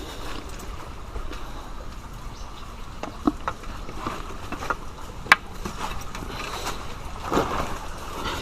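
Footsteps scuffing over loose rock, with a few sharp clicks and a longer scrape near the end.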